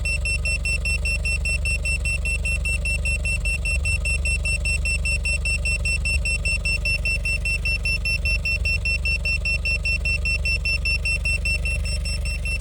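Carbon monoxide detector sounding its alarm, a rapid, continuous high-pitched beeping, set off by high CO from car exhaust at the muffler. Under it, the steady low rumble of the car engine idling.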